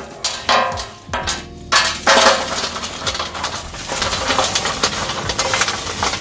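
Burning charcoal lumps tumbling out of a metal chimney starter into a grill tray, clinking and clattering. A few loud clatters come in the first two seconds, then a steady rattling stream as the rest pours out.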